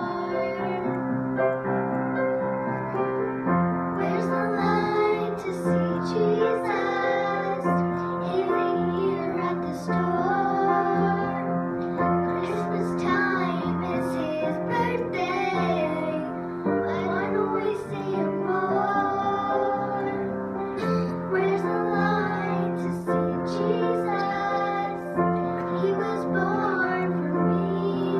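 Two young girls singing a duet into handheld microphones over instrumental accompaniment with piano.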